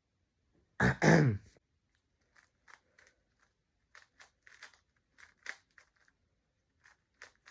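A short vocal exclamation about a second in, then a Rubik's cube being twisted: a string of irregular short plastic clicks and scrapes as its layers turn.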